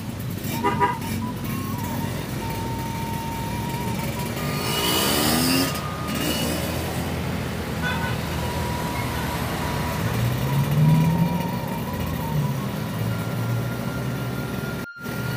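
Motorcycle riding along a road in traffic: engine and road noise run steadily, and a louder vehicle sweeps past about five seconds in.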